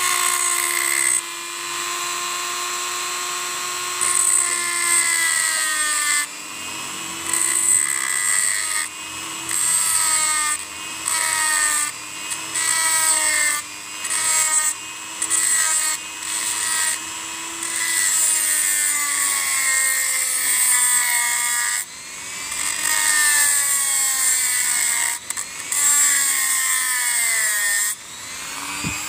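Handheld rotary tool with a small cutting disc grinding the steel pulser trigger lug on a motorcycle magneto flywheel. The motor whines steadily, and its pitch dips each time the disc bites. The grinding comes in many short passes about a second or two apart. The lug is being cut down to change the ignition timing.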